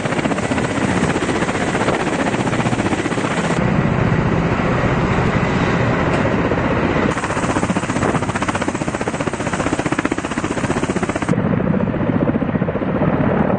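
Kamov Ka-52 attack helicopters running, their coaxial rotors beating in a fast, continuous chop over the engine noise. The sound changes abruptly three times as one short clip gives way to the next.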